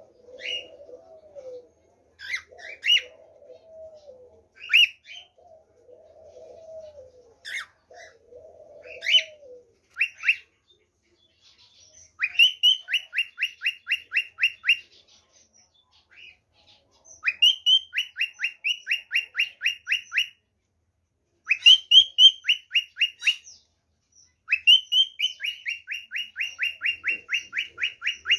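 Cockatiels singing: single sharp chirps every second or two over low arching cooing notes, then, from about twelve seconds in, four bouts of rapid repeated chirps, about four or five a second, each bout lasting two to four seconds.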